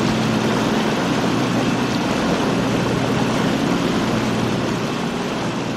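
Steady roar of a space shuttle's rocket engines during launch and ascent, a dense rumbling noise that eases slightly near the end.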